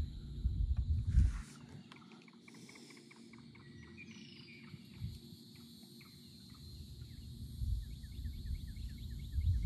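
Quiet open-air ambience on a lake. A low rumble sounds for the first second and again over the last two. Faint bird calls come between: a falling whistle about four seconds in and a fast run of short chirps near the end.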